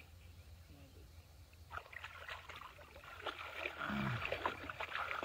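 Shallow pond water splashing and sloshing as hands grope inside bamboo polo fish traps, becoming busier and louder about two seconds in.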